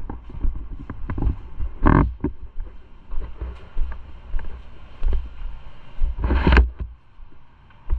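Footsteps, clothing rustle and handling knocks picked up by a body-worn camera as someone walks indoors, with a low rumble on the microphone. There is a brief rush of noise about two seconds in and a louder half-second one about six seconds in.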